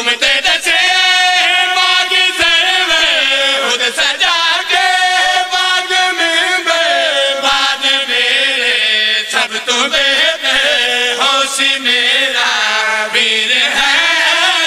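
A group of men chanting a devotional verse together into one microphone, their voices sustained and melodic with pitch slides, continuous and loud.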